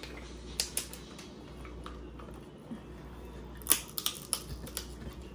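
Sharp cracks and clicks of crab-leg and lobster shells being broken open while eating, several spread through, the loudest about two-thirds of the way in, over a low steady hum.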